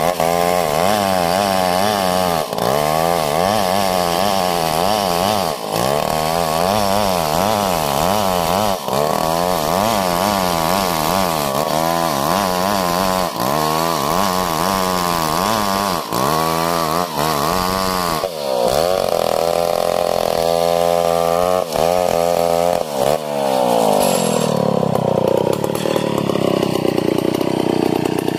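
Stihl 070, a large two-stroke chainsaw, running hard while ripping lengthwise through a log, its engine speed swinging up and down over and over as the chain bogs and recovers in the cut, with a few brief dips. In the last few seconds the engine note settles into a steadier, more even pitch.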